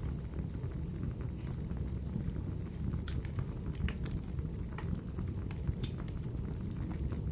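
Wood fire crackling: a steady low rumble with scattered sharp pops and snaps, a few louder ones near the middle.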